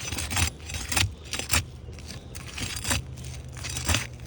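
Shingle bar scraping and prying under old, brittle asphalt shingles: a series of short, sharp scrapes and crackles, about one every half second, as the shingles crumble instead of lifting cleanly.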